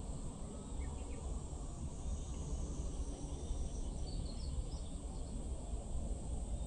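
Outdoor riverside ambience: a steady high insect drone, a few short bird chirps about one second in and again around four to five seconds in, over a fluttering low rumble.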